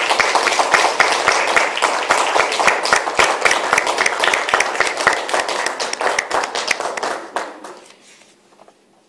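A small audience applauding: dense, rapid clapping that dies away shortly before the end.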